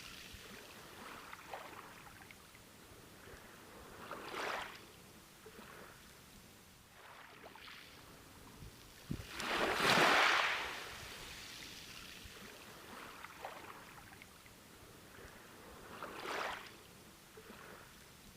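Sea waves breaking and washing up a beach: three swells, about six seconds apart, the loudest near the middle, over a soft steady hiss of surf.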